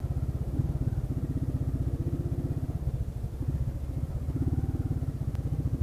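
Motorcycle engine running as the bike is ridden up a street, with a fast, even pulse. The engine note dips a little midway and picks up again near the end.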